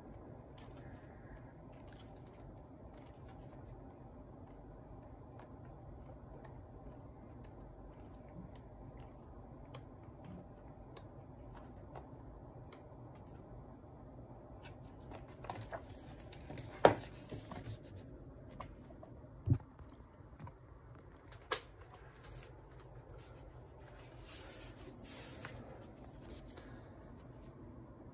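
Paper handling: photobook pages being turned and handled, soft rustles over a low steady room hum. In the second half come three sharp knocks, the first the loudest, and a brief hissing slide of paper near the end.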